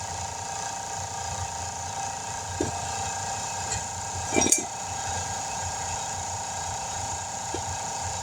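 Tire-changing work over a steady mechanical hum: a sharp knock, then a short clatter of knocks about halfway through, the loudest sound, and one more light knock near the end.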